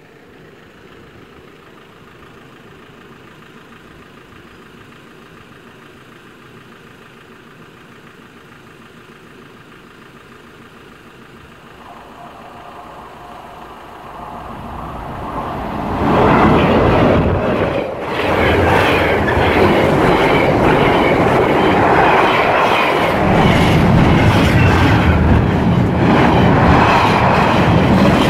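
An intermodal container freight train hauled by a pair of Class 86 electric locomotives approaching and passing close by. It is faint at first, grows from a little under halfway and is loud from just past halfway, with the container wagons' wheels rolling and clattering over the rails to the end.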